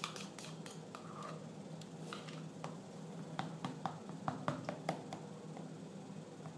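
A plastic spoon stirring yogurt into cottage cheese in a plastic tub: soft wet squelches with light, irregular clicks of the spoon against the tub, several a second.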